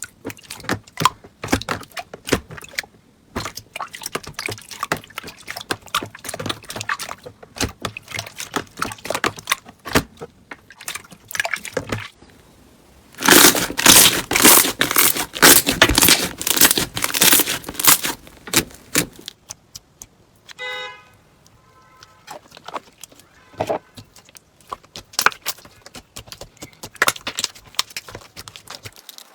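Crunchy slime being squeezed and pressed by hand, crackling and popping in dense runs of small clicks, with the loudest, most packed crackling for several seconds in the middle. A brief squeak comes about two-thirds of the way through.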